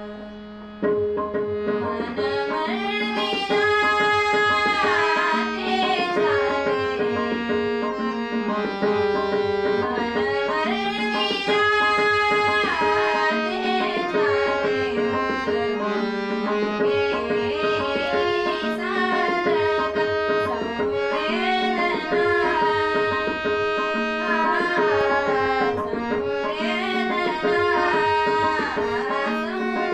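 A woman singing a devotional or classical-style Indian song with tabla accompaniment over a steady drone, her voice gliding through ornamented phrases.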